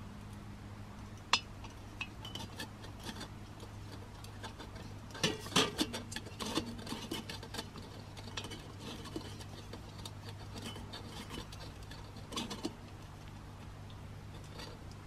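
Scattered light metallic clicks and scrapes as a gas canister is screwed onto a camping stove's fitting, with a louder cluster about five seconds in and another about twelve seconds in.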